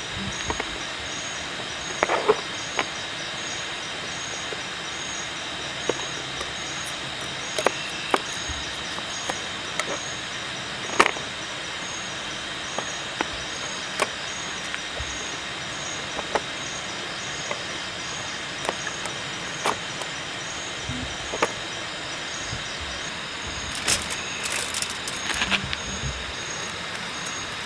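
Kitchen knife cutting through a raw potato onto a plastic cutting board, with a sharp tap every second or two, then aluminium foil crinkling near the end. Underneath is a steady background hiss with a high, regularly pulsing chirp.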